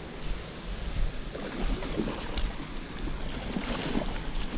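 Water splashing and sloshing in the shallows as a hooked longnose gar is drawn to the bank, in uneven bursts over a steady rush of water, with wind buffeting the microphone.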